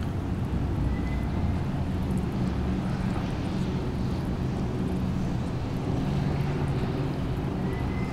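A steady low engine-like hum with a few held low tones and no clear change. A faint short high tone sounds about a second in and again near the end.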